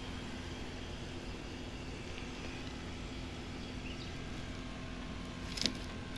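Steady low outdoor rumble with a faint steady hum, and a single sharp click about five and a half seconds in.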